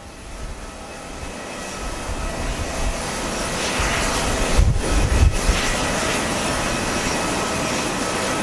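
Jet airliner engines running with a steady whine, growing steadily louder. Strong wind buffets the microphone with low rumbles about five seconds in.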